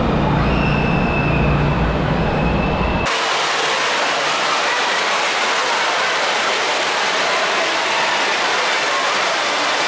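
Indoor water park ambience. A steady low rumble with a few faint high tones cuts off abruptly about three seconds in. It is replaced by an even rushing hiss of running and splashing water, echoing through the large enclosed slide hall.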